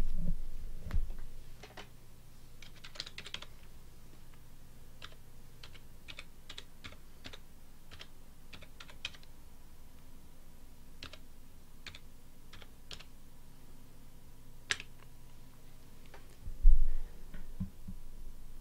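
Computer keyboard typing: a quick run of key clicks as a web address is entered, ending in one sharper keystroke. A dull low thump comes near the end.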